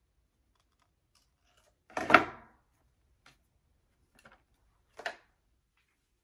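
Short handling knocks at a sewing table: a louder knock with a brief rustle about two seconds in, a few faint ticks, and a sharp click near the five-second mark, as tools and the fabric mask are handled.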